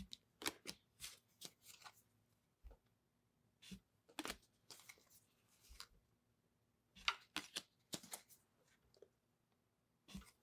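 Tarot cards being flipped through by hand: card slapping and sliding against card in faint, short clicks that come in small clusters with pauses between.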